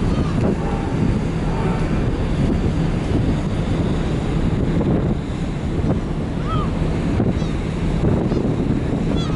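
Wind buffeting the microphone over a steady low hum and the rush of water, heard from the open deck of a moving car ferry.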